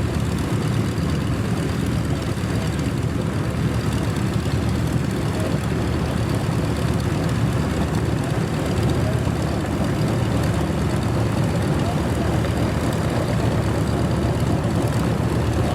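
Piston engine of a vintage propeller aircraft running steadily at a constant, low, even pitch, with no revving up or down.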